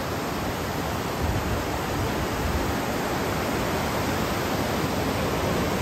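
Loud, steady rush of Montmorency Falls, an 83-metre waterfall: falling water making a dense, even noise with no pauses.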